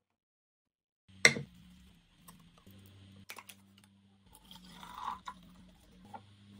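A sharp click about a second in, then a few lighter clicks and taps from handling kitchen things, over a faint low steady hum.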